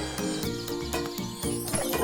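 Upbeat background music with a steady bouncing beat and bright melodic notes.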